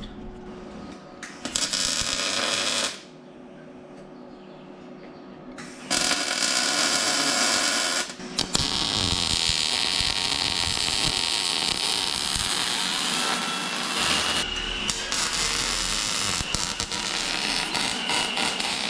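Handheld power tool running in long stretches, with a quieter gap about three seconds in and a short break about eight seconds in.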